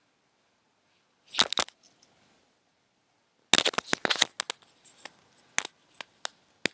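Handling noise of paper: brief bursts of rustling and sharp clicks as the pages of a book are leafed through. One short burst comes about a second and a half in, a denser flurry about three and a half seconds in, and scattered single clicks follow.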